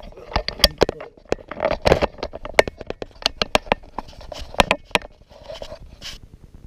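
Handling noise as a camera is picked up and repositioned close to its microphone: irregular sharp knocks and taps with rubbing and rustling between them.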